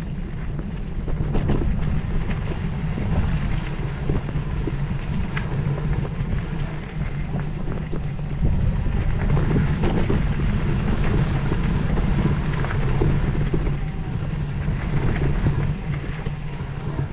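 Wind buffeting the microphone over a steady low rumble of travel, with many scattered small clicks and rattles.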